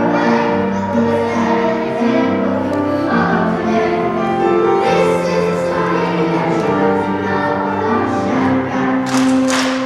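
Children's choir singing long held notes with instrumental accompaniment, with a brief burst of hiss near the end.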